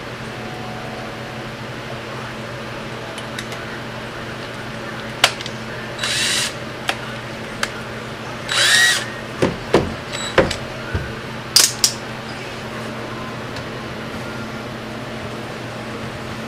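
Power drill with a 3/8-inch bit whirring in two short bursts, about six and nine seconds in, drilling the drain-line hole into a PVC sink drain pipe, followed by a few sharp knocks and clicks.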